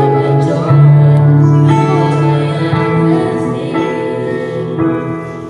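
A young man and a woman singing a worship song together as a duet, over a steady instrumental accompaniment.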